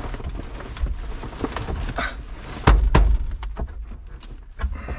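Steel glove box lid in a 1971 Ford F600's dashboard being tugged and knocked by hand: a string of clicks and metal thunks, the two loudest about three seconds in, close together.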